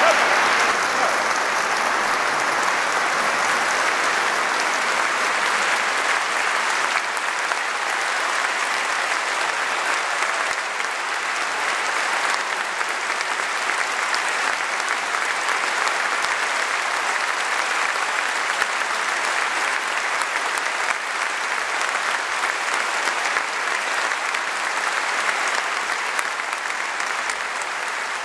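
Concert audience applauding steadily, the clapping easing off a little near the end.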